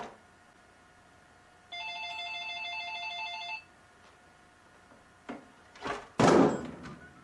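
See-through landline telephone ringing once with an electronic warbling trill for about two seconds. Near the end come a knock and then a loud clatter as the cat paws at the phone and knocks it off the counter.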